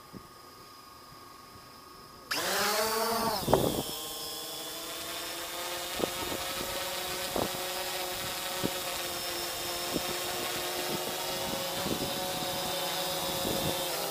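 Brushless quadcopter motors and propellers: a faint steady whine, then about two seconds in they jump abruptly in loudness and pitch as the drone lifts off. The pitch rises and falls back, then settles into a steady multi-tone buzz as it hovers, with occasional short thumps.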